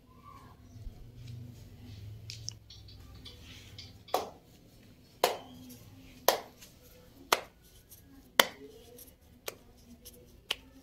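Hands working roti dough: soft handling for the first few seconds, then seven sharp slaps about a second apart as dough is patted between the palms.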